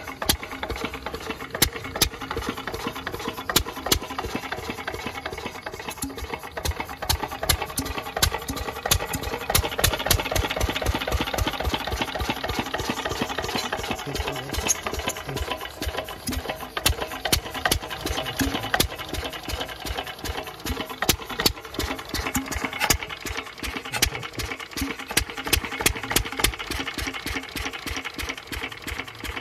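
Field Marshal Lister-type single-cylinder diesel engine running, with a steady, even beat of sharp knocks from its firing strokes, getting a little louder about a third of the way in.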